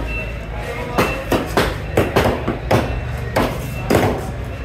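A large knife chopping through fish flesh and bone onto a wooden block, about ten sharp, uneven chops over a steady low market background.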